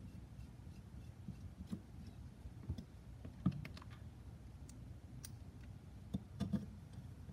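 Scattered light clicks and taps of a carbon fiber drone frame, small M3 screws and a screwdriver being handled on a silicone work mat during assembly. The sharpest tap comes about halfway through, with a quick cluster of clicks near the end.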